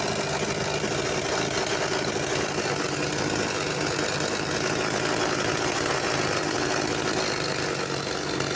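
Small two-stroke chainsaw engine fitted to a bicycle, running steadily at an even speed.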